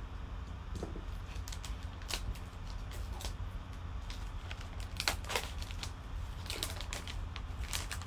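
Plastic trading-card packaging being handled and torn open, crinkling with scattered sharp clicks and crackles at irregular moments, over a steady low hum.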